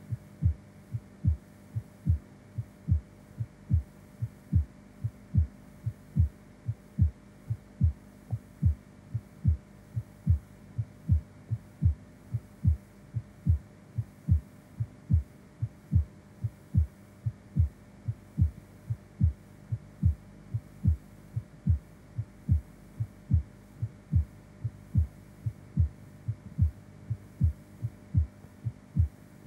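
Human heartbeat beating steadily and evenly, a little over two thuds a second, over a faint steady hum.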